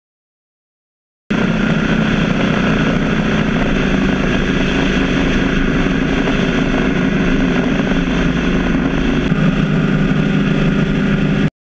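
BMW R 1200 GS flat-twin engine running steadily at motorway cruising speed with wind rush, heard from a camera mounted on the bike. The sound cuts in abruptly about a second in, the engine note shifts slightly near the end, and it cuts off abruptly just before the end.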